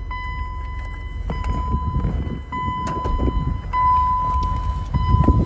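BMW 325i's 2.5-litre straight-six idling, under a high warning tone from the car that sounds steadily with brief breaks about every second. A few clicks and knocks come from the cabin.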